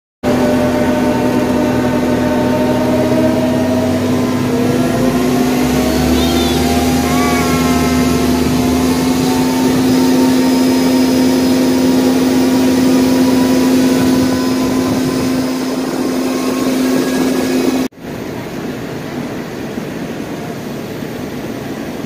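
Open-air parking-lot tram running, its motor giving a loud steady hum, with a few short gliding squeals around six to eight seconds in. About eighteen seconds in the sound breaks off sharply and gives way to a quieter steady noise.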